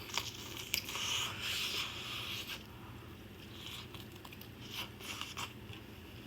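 Close-up eating sounds: biting into and chewing an air-fried kielbasa sausage, with a few short hissy bursts in the first couple of seconds and scattered sharp clicks after.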